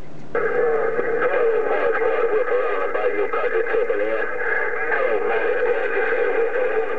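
CB radio receiving a garbled incoming transmission on 27.025 MHz, a distorted, unintelligible voice-like signal mixed with static. It switches on abruptly a fraction of a second in and stays steady.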